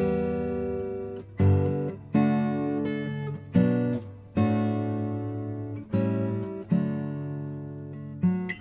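Background music: an acoustic guitar playing chords, a new chord struck about every second.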